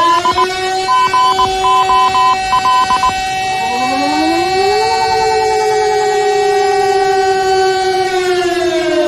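A siren holds a steady wailing tone, with rapid short beeps over it for the first three seconds. A second siren tone glides up about four seconds in and holds alongside the first. Both dip slightly in pitch near the end.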